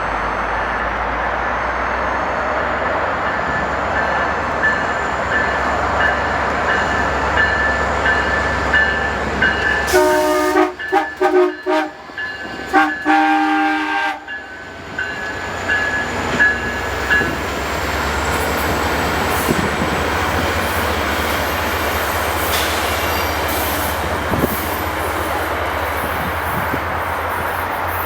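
UTA FrontRunner commuter train's diesel locomotive approaching and passing, with a bell ringing repeatedly through the first half. About ten seconds in, its multi-note air horn sounds a string of short blasts for about four seconds, a 'horn show'; afterwards the cars roll by with steady rail noise.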